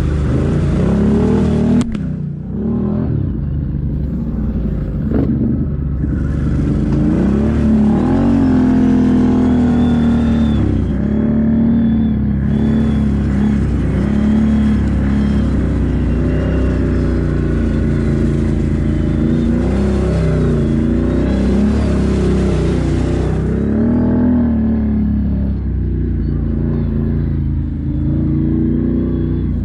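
ATV engine running under load on a muddy trail, its revs climbing and dropping again and again as the throttle is worked.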